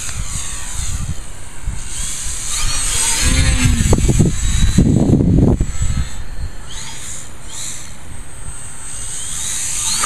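Electric RC plane's brushless outrunner motor and 12x6 propeller whining, pitch gliding up and down with the throttle. Heavy wind buffets the microphone, with strong gusts about halfway through.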